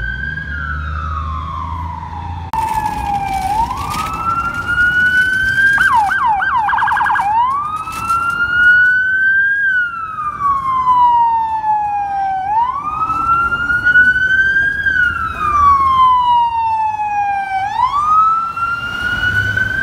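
FDNY emergency vehicle's electronic siren sounding a wail: it rises quickly and falls slowly, about every five seconds. About six seconds in there is a brief burst of fast yelping. Low engine and traffic rumble runs underneath.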